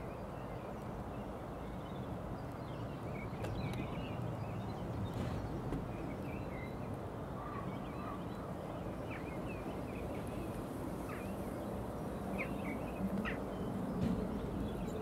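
Outdoor ambience by the canal: short bird chirps and calls come now and then over a steady low rumble.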